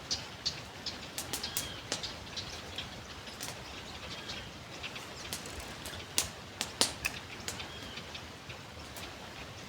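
Small birds chirping in short arched notes every second or two, over a steady outdoor hiss, with many scattered sharp ticks throughout.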